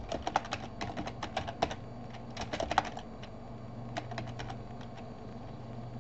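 Computer keyboard typing in three quick bursts of keystrokes, over a steady low hum.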